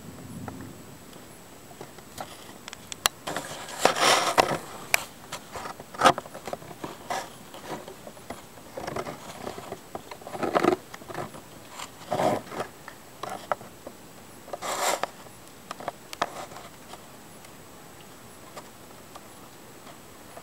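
Close scraping, rubbing and clicking from a handheld camera being handled, in irregular short bursts that are loudest about four and six seconds in and die away after about seventeen seconds.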